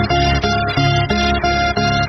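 Background music: plucked-string instrumental with notes repeating in a steady rhythm.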